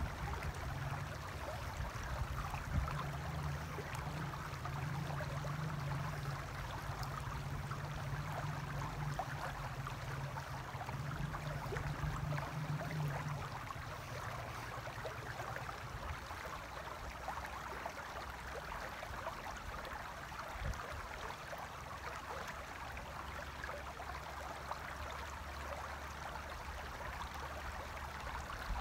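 Shallow river running over stones: a steady rushing of water. A low steady hum underneath stops about halfway through.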